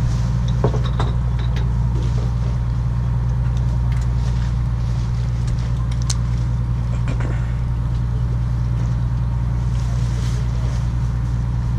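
Steady low hum of the fishing boat's engine running, unchanging throughout.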